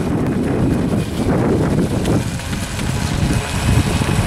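Wind buffeting the microphone, a loud uneven rumble.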